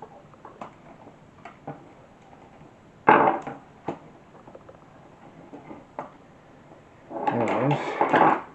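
Hard plastic parts of an Atari 410 program recorder being handled and fitted: the cassette mechanism knocking and clicking against the plastic case. There is a loud clatter about three seconds in and a longer, louder stretch of handling noise about seven seconds in.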